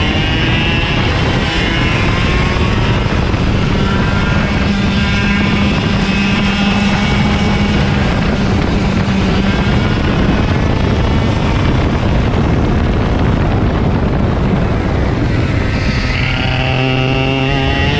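IAME KA100 100cc two-stroke kart engine at racing speed. Its revs climb and fall several times as the kart accelerates and slows, with a sharp fall and fresh climb near the end.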